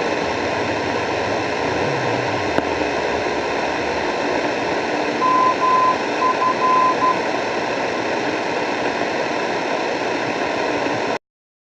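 Shortwave radio receiver hissing with static, with a short run of on-off beeps at one steady pitch about halfway through. The sound cuts off suddenly near the end.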